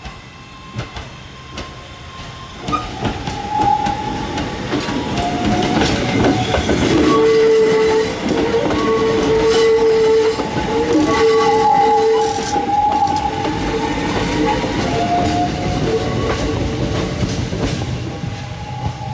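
Hakone Tozan Railway 3000-series 'Allegra' electric railcar pulling away and passing close by, its wheels clicking over the rail joints. A high, wavering squeal runs through the loudest part as it goes past, then fades as it moves off.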